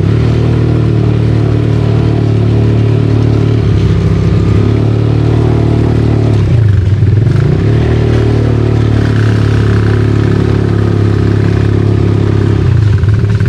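ATV engine running under way on a rough trail, its pitch dipping and rising with the throttle about four and seven seconds in.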